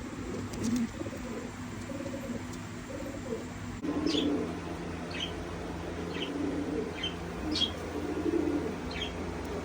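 Domestic pigeons cooing in low, soft calls. From about four seconds in, short high chirps, about one a second, join the cooing.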